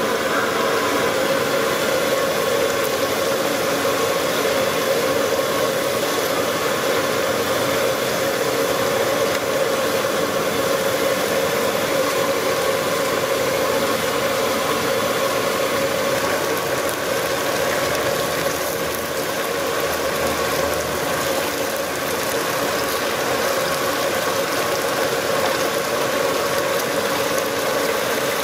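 Battered fish pieces deep-frying in a large iron wok of hot oil: a steady sizzle, with a steady hum underneath.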